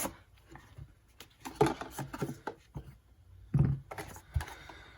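Cardboard product box being opened by hand and its packaging handled, with scattered rustles, light scrapes and small knocks.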